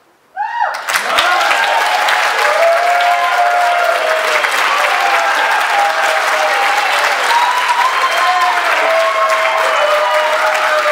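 Audience breaks into applause about half a second in, right after the song's last note, with cheering voices over the clapping.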